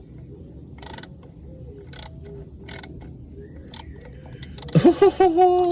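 Hand ratchet clicking in scattered short runs as a bolt is worked in by hand. Near the end comes a loud, drawn-out vocal cry that rises in pitch.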